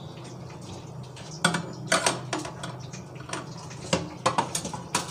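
Cumin seeds frying in hot mustard oil in a kadai: scattered sharp pops and spits over a steady low hum.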